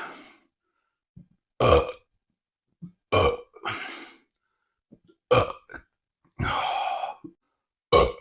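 A man burping loudly, about five separate burps in a row, each short except one held for about a second.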